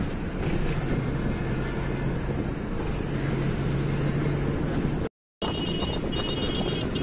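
Bus engine and road noise heard from inside a moving passenger bus: a steady low engine hum over rushing tyre and wind noise. It drops out suddenly for a moment about five seconds in, then carries on with a high pulsing tone added.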